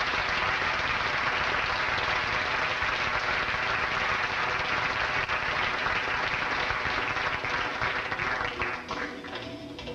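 Audience applauding steadily, then dying away about nine seconds in.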